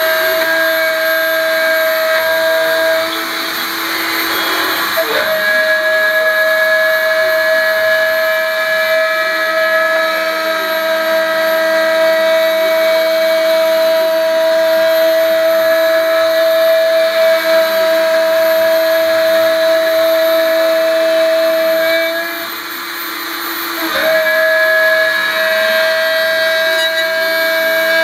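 Isel CNC gantry milling machine cutting aluminium: a steady, high spindle whine with the end mill chewing through the metal. The tone breaks off briefly about 3 seconds in and again about 22 seconds in, then returns.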